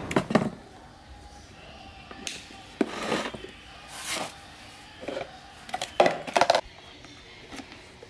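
Knocks and scrapes of plastic desk-fan parts being handled and fitted together. The loudest clusters of knocks come at the very start and about six seconds in.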